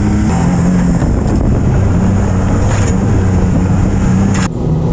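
Can-Am Maverick R side-by-side's turbocharged three-cylinder engine running under way on a dirt track, heard from inside the open cabin, its note stepping up and down as it pulls through the gears. A sharp knock sounds near the end.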